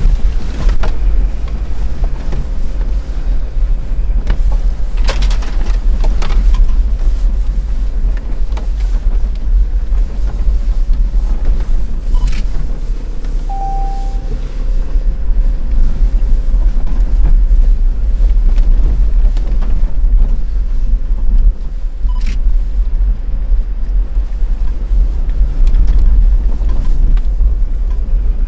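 Steady low rumble inside the cabin of a moving Ineos Grenadier, from its BMW B58 3.0-litre straight-six petrol engine, drivetrain and tyres. A few short knocks come through at intervals, and a brief beep sounds about halfway.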